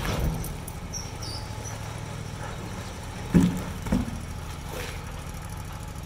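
Dump truck engine running steadily while its raised bed tips off a load of cedar logs. Two heavy thuds come about three and a half seconds in and again half a second later, as logs drop onto the pavement.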